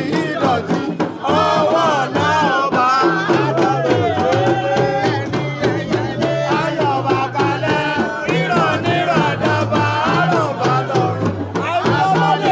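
Music: voices singing a melody over drumming, with a steady stepping bass line underneath.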